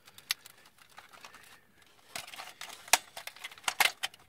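Hard plastic parts of a transforming robot toy clicking and rattling as its fist is pulled off and turned by hand. There are scattered sharp clicks, with the loudest about three seconds in and a quick run of clicks near the end.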